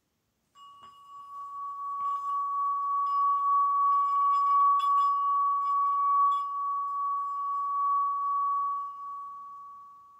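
Small metal singing bowl rubbed around its rim with a mallet, giving one steady ringing tone with a few light clicks of the mallet. The tone swells over the first few seconds, holds, then fades near the end as the mallet is lifted away.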